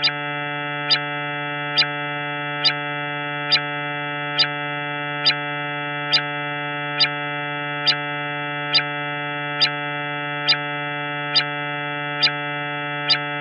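Steady synthetic drone, presented as the sound of Jupiter's moon Himalia: one held low pitch with many overtones, and a sharp tick a little under once a second.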